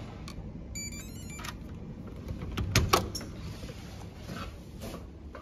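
Electronic key-card lock of a hotel-room door: a short tune of electronic beeps about a second in as the card is read, then sharp clicks of the latch and handle as the door is opened, the loudest about halfway through, with a few fainter clicks later.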